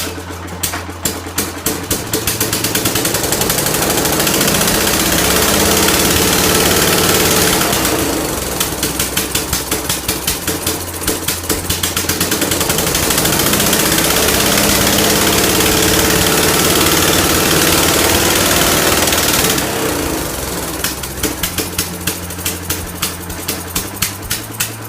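Craftsman snowblower's small four-stroke Tecumseh engine running, its speed climbing from a slow, pulsing chug to a loud, steady high-speed run, dropping back about eight seconds in, climbing again, and falling back to the slow chug near the end. The hunting up and down in speed fits the over-revving and governor trouble the owner describes.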